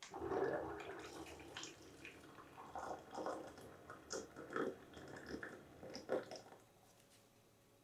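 Electric hot water pot dispensing hot water into a glass: a stream of water pouring, with a low hum from the pot's pump and a few light clicks, stopping about six and a half seconds in.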